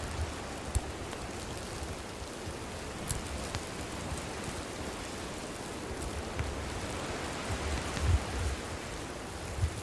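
Wood bonfire burning with a steady hiss and scattered sharp crackles and pops, with low rumbling swells near the end.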